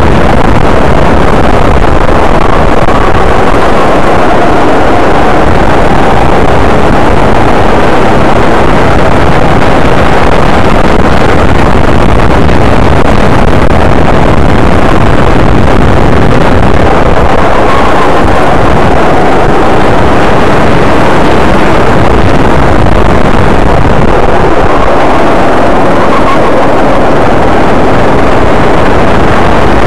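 Go-kart engine running hard at speed, heard from a camera on the kart itself: a loud, continuous engine note whose pitch rises and falls as the kart brakes into corners and accelerates out, mixed with wind rush on the microphone.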